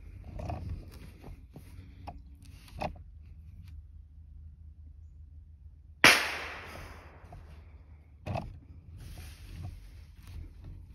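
A single rifle shot about six seconds in: one sharp crack that dies away over about a second. A smaller sharp knock follows about two seconds later, with faint knocks and handling noise around it.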